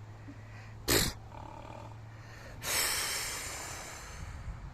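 A horse snorting: a short, sharp snort about a second in, then a longer blow near three seconds in that trails off over a couple of seconds, from an agitated horse spooked by the wind.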